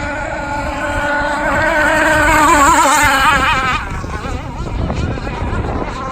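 Zenoah 29.5 two-stroke gas engine of an RC outrigger racing boat running at speed, its pitch wavering; it grows louder to a peak about three seconds in, then drops off suddenly and carries on lower.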